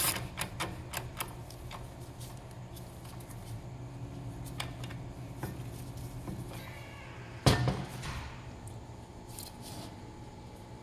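Socket ratchet clicking in short quick strokes for about the first second as brake caliper bolts are tightened, then light tool handling over a steady low hum, with one sharp metal clunk about seven and a half seconds in.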